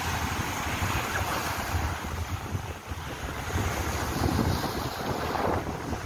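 Sea waves washing and breaking on a rocky shore, with wind buffeting the phone's microphone as a low rumble. The surf swells louder a couple of times in the second half.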